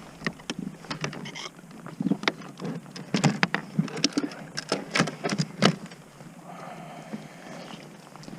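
Irregular knocks, taps and rustles of a caught catfish being handled and measured aboard a kayak, busiest in the middle and softer near the end.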